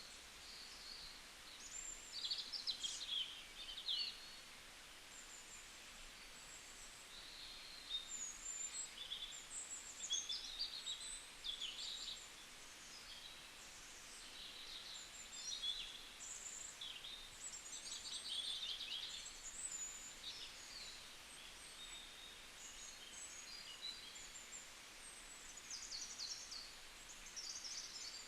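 Small birds chirping and singing, many short varied calls and trills overlapping one another, over a faint steady background hiss.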